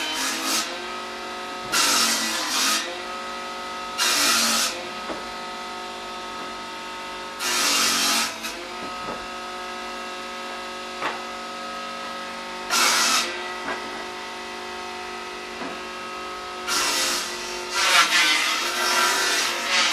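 Circular saw running with a steady whine, broken by about six short bursts of harsh cutting noise at irregular intervals as the blade bites in; the longest and loudest cut comes near the end.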